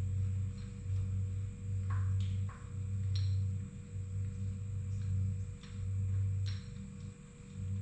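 Sharp metallic clinks and taps, about a dozen, as a two-jaw gear puller is repositioned and clamped around the lip of an engine pulley, over a low hum that swells and drops roughly every second.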